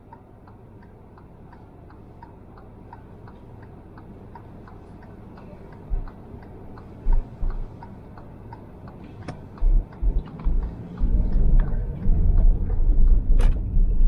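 Car turn-signal indicator ticking steadily, about two to three clicks a second, in a car waiting at a light. From about six seconds in come low thumps, and near the end a low car rumble builds and becomes the loudest sound.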